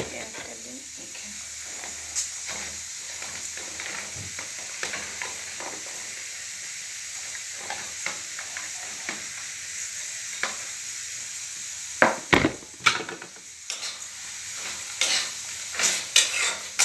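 Food sizzling as it fries in oil in a pan, stirred with a spatula that scrapes and clicks against the pan. It is being fried until the oil separates. A few louder knocks against the pan come about twelve seconds in and again near the end.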